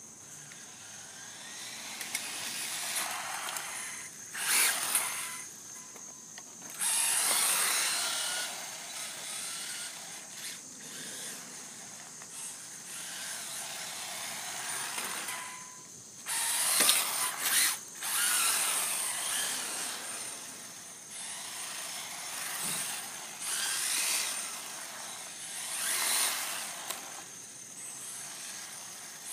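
Electric RC car's motor and drivetrain whining in repeated bursts as it accelerates, rising and falling as the car speeds up, slows and passes; the loudest bursts come about seven seconds in and again around seventeen seconds.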